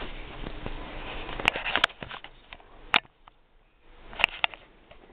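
Faint room noise with about five sharp clicks or taps, two of them in quick pairs.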